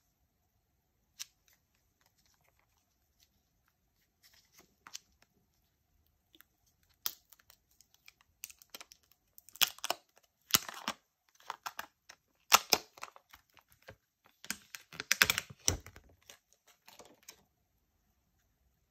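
Smartphone packaging opened by hand: a few light clicks and taps at first, then from about a third of the way in, repeated short bursts of crinkling and tearing wrapping.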